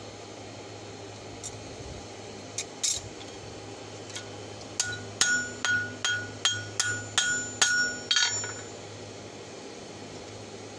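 Hand hammer striking red-hot steel on an anvil while the open end of an old wrench is forged into fork tines. A few light taps come first, then a run of about nine blows at two to three a second, each ringing briefly.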